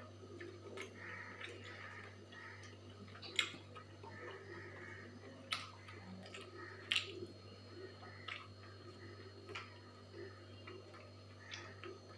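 A person eating: soft, irregular chewing and mouth sounds, broken by a few sharp clicks, the loudest about three and a half, five and a half and seven seconds in.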